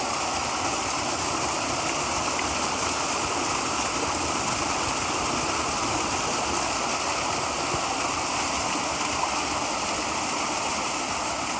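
Creek waterfall: a steady, even rush of falling water.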